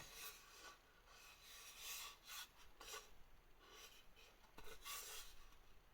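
Faint rubbing and light scraping of hands handling a bamboo piece, in a series of soft, short strokes.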